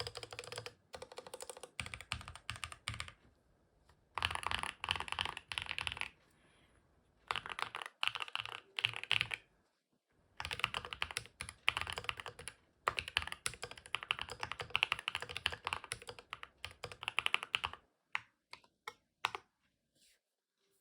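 Typing on a Keychron Q11 split mechanical keyboard with a two-layer tape mod and Akko CS Piano keycaps. Fast runs of keystrokes come in bursts of a second or two with short pauses between them, thinning to a few scattered keystrokes near the end.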